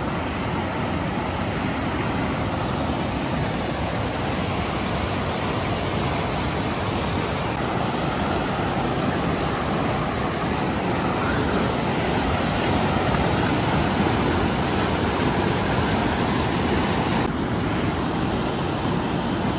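Fast-flowing mountain river rushing over rocks and rapids: a steady, unbroken rush of white water.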